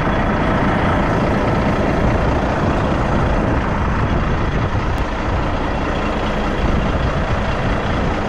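Heavy road-train truck running: a loud, steady rumble and noise that does not let up.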